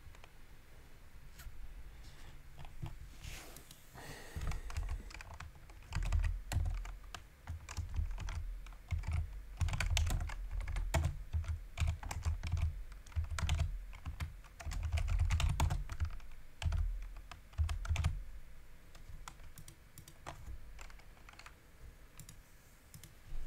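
Typing on a computer keyboard: quick runs of keystroke clicks with soft thuds under them. It is sparse at first, densest through the middle, and thins out near the end.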